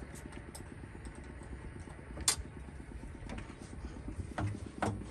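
Hino truck's diesel engine idling with a steady, rapid low pulsing, its engine bay open. A single sharp click cuts through about two seconds in.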